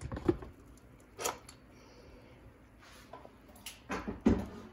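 Pressure cooker lid being twisted loose and lifted off the pot: a handful of sharp clicks and knocks of the lid against the rim, the loudest near the end.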